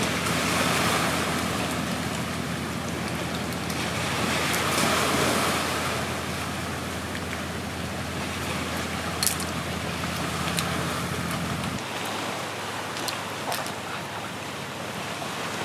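Sea waves washing against a rocky shore, a steady rush that swells twice in the first few seconds, with a few short clicks later on.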